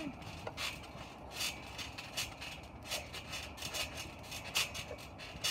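Trampoline springs and mat sounding with each bounce of a child jumping, a short sharp stroke about every three quarters of a second.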